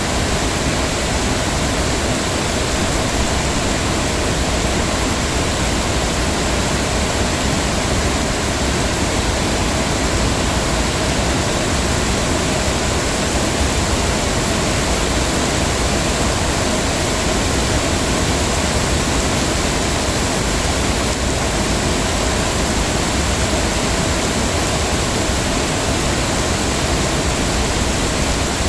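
Heavy rain falling steadily: a dense, even hiss with no single drops or other events standing out.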